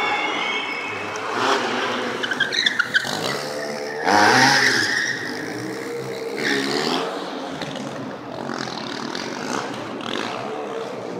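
Stunt motorcycle engine revving up and down hard, with a quick string of sharp exhaust pops about two seconds in and tyres screeching loudest about four seconds in.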